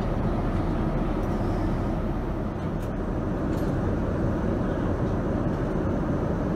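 Steady cabin noise of a Boeing 787-9 airliner in flight, an even low rush with a couple of faint ticks near the middle.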